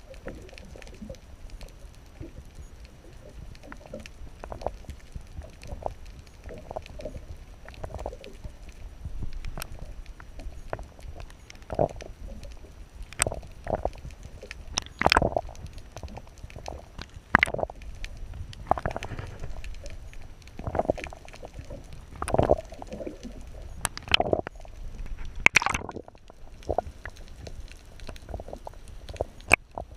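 Muffled sound of water heard through a camera held just under the sea surface: a steady low rumble with irregular gurgles and sharp clicks and knocks, more frequent in the second half.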